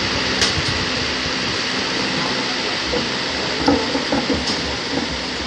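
Steady rushing noise of a large electric standing fan running right beside the microphone, with a short click just under half a second in and faint voices around four seconds in.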